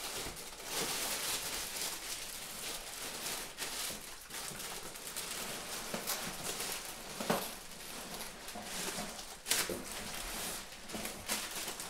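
Rustling and scraping of cardboard and plastic wrapping as a large boxed floor-standing speaker is worked out of its carton, with a couple of sharp knocks in the second half.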